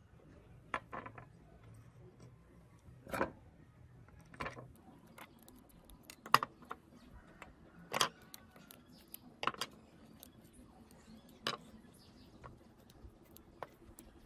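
Small parts of a 1/18-scale Kawasaki Ninja H2R toy motorcycle model clicking and clinking irregularly as they are handled and pried apart by hand.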